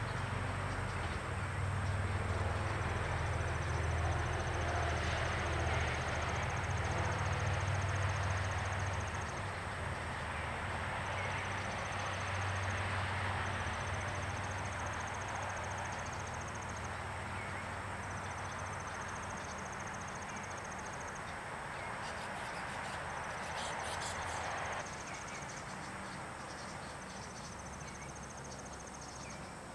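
Outdoor ambience: a low rumble of passing road traffic that fades over the first half and drops away about 25 seconds in. An insect's rapid high trill repeats in runs of two to three seconds, with a few brief high chirps a little after 20 seconds.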